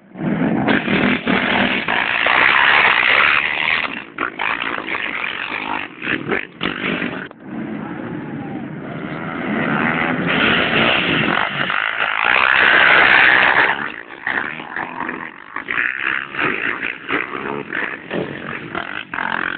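ATV engines running hard in a race, revving up and down. The sound surges and drops in choppy bursts and is loudest a little past halfway.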